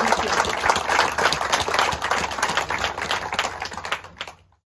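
Audience applauding, many hands clapping, dying away and stopping near the end.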